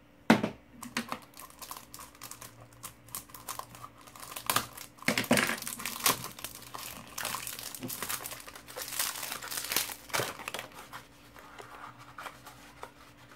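Paper and cardboard packaging crinkling and rustling as an ink bottle's box is opened and unwrapped by hand, with sharp crackles and a few louder bursts.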